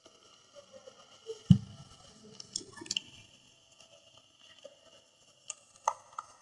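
Thin pieces of gym chalk crushed by gloved hands: one heavy crunching press about one and a half seconds in, then crisp crackles and crumbling, and a couple of sharp cracks near the end.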